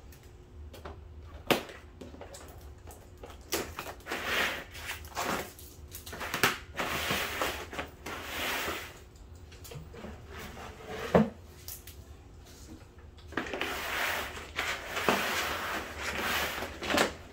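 A coil of flexible black plastic edging strip being handled and uncoiled on cardboard: rubbing and scraping of the strip, with a few sharp knocks and clicks, the loudest about eleven seconds in.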